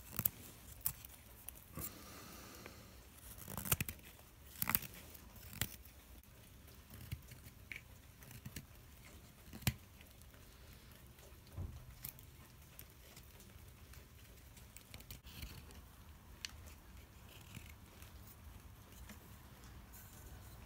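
Straight carving knife slicing thin shavings off a sugar maple spoon: short, irregular cuts, busier in the first few seconds and sparser after.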